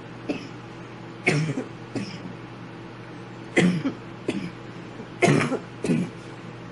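A young woman's coughing fit after inhaling bong smoke: about six harsh coughs, singly and in pairs with short pauses between, the longest and loudest a little past the five-second mark.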